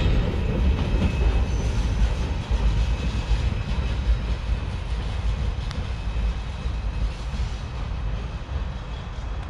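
Freight train rolling past, a low steady rumble of wheels on rail that slowly fades as the train moves away.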